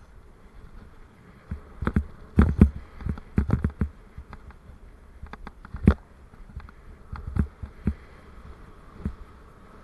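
Irregular knocks and rattles of a Raleigh Mustang Elite bicycle and its mounted camera jolting over an uneven path, loudest in a cluster about two to four seconds in and with one sharp knock about six seconds in, over a faint steady hiss.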